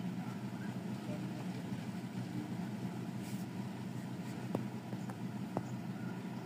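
A steady mechanical drone from a running motor, even and unbroken, with a couple of faint ticks.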